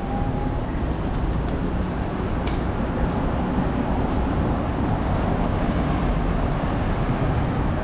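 Steady city street traffic noise, a dense rumble of passing vehicles, with a brief click about two and a half seconds in.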